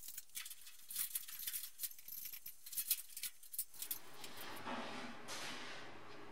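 Faint clicking and rustling from hands working on ceiling light fittings and loose wiring, then a steady hiss for the last two seconds or so.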